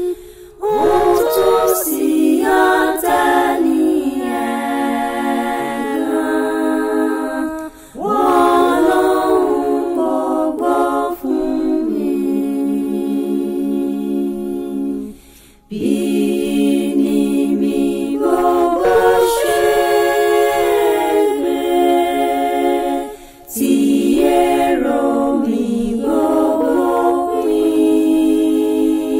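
Unaccompanied singing: long, held vocal phrases with no instruments, each breaking off briefly about every eight seconds before the next begins.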